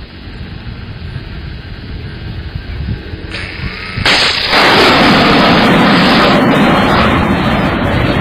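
Low rumble of a distant helicopter. About four seconds in, a sudden loud rushing blast starts and holds for about four seconds before easing: the launch of an Igla shoulder-fired missile.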